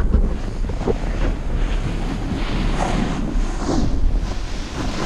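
Wind buffeting a handheld camera's microphone as it is carried down a steep snow slope, a continuous rumble, with the hiss and scrape of edges sliding over snow.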